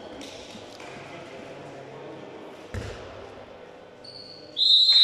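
A handball bouncing once on the court floor, then near the end a referee's whistle: a loud, long, steady blast.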